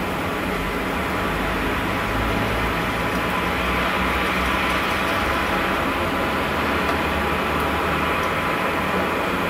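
Steady low rumbling drone under an even hiss, getting slightly louder about two seconds in: the unexplained 'strange sound' over Arkhangelsk, whose source the recorder went out to look for and could not find.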